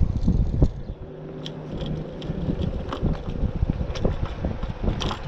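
Wind buffeting on the microphone while riding a 500 W electric scooter, with many quick clicks and rattles. A brief low hum comes in about a second in.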